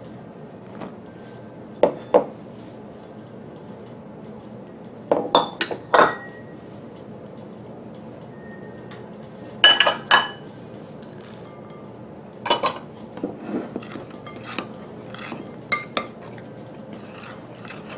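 Clinks and knocks of a metal measuring cup and another bowl striking the rim of a glass mixing bowl as flour and other dry ingredients are tipped in. A few sharp separate strikes, with lighter taps near the end.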